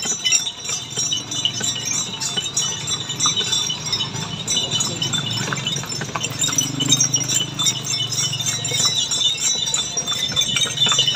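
Small bells on a delman horse's harness jingling continuously as the horse-drawn cart moves, over a steady low rumble.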